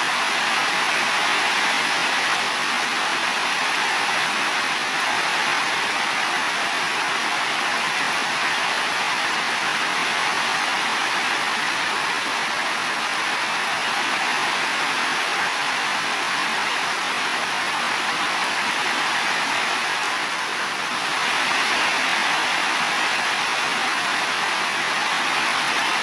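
Heavy rain falling steadily on building roofs, a dense, even hiss.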